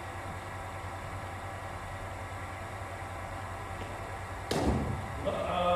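A single sharp crack of a cricket bat striking a ball from a bowling machine, about four and a half seconds in, over a steady low hum.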